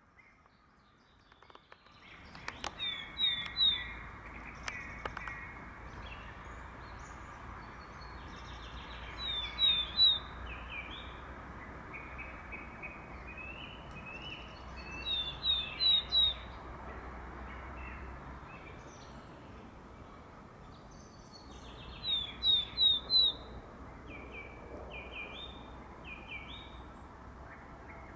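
Willow tit singing its spring song: short phrases of three or four clear, falling whistles, repeated about every six to seven seconds. Other birds call faintly between the phrases.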